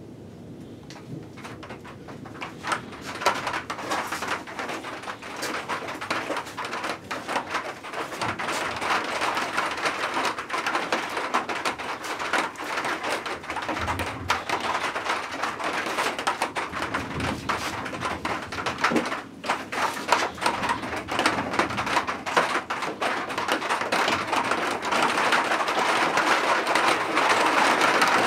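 Heavy rain in a summer thunderstorm, building from scattered drops into a dense downpour, with many close drop hits tapping on a nearby surface. It grows steadily louder, and a low thunder rumble dies away in the first couple of seconds.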